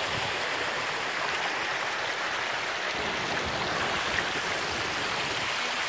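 River water running over rocks and through small cascades, a steady rush.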